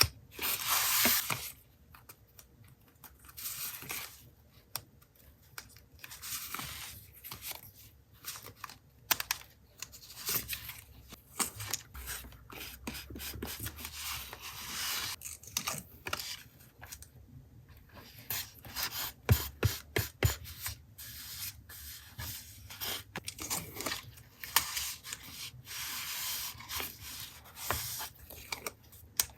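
Close-up sounds of paper and stickers being handled for a collage journal: irregular rubbing, rustling and tearing of paper, with scattered sharp taps and clicks.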